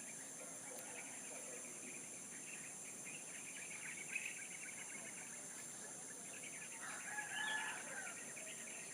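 A rooster crowing once, faint, about seven seconds in and lasting about a second and a half, over continuous chirping of small birds and a steady high-pitched insect drone.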